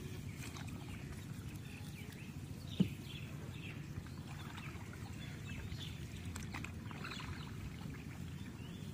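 Small wooden boat being poled through water thick with water hyacinth: a steady low rush of water and movement, with one sharp knock about three seconds in and faint high chirping throughout.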